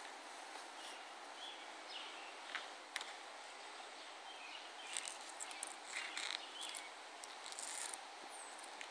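Faint outdoor ambience: a steady background hiss with scattered short, high bird chirps, a few soft clicks, and a brief falling whistle near the end.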